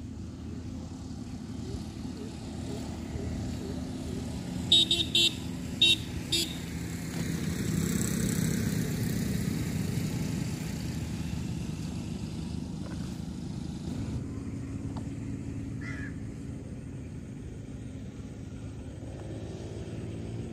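Motor vehicle engine running, with a horn sounding several short toots in quick succession about five seconds in, then a vehicle passing by with a swell in sound a few seconds later.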